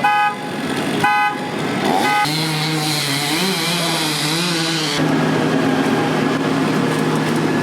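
City street traffic: a motor vehicle's engine running steadily, with a short horn-like toot about a second in.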